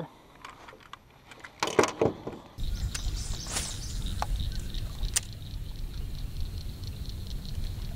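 A few small handling clicks, then a short sharp splash about two seconds in as a released fish drops back into the lake. About half a second later the sound cuts to a steady low outdoor rumble with faint, quick, evenly spaced ticking.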